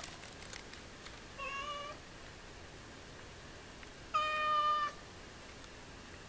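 American Shorthair cat meowing twice: a short meow about a second and a half in, then a louder, longer one about four seconds in. The owner takes the calls as the cat demanding that her freshly used litter box be cleaned.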